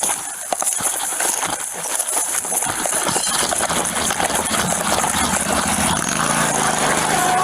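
Quick knocks and rattles for the first few seconds. Then, from about halfway, a riding lawnmower's small engine runs steadily and grows louder as it nears.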